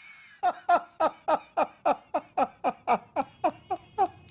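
Someone laughing in a fast, even run of about fourteen short 'ha' syllables, each falling in pitch.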